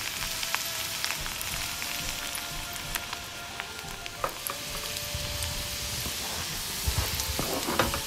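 Butter sizzling in a small pan, frying chopped garlic, crushed dried chillies and curry leaves, with a steady crackle and many small sharp pops.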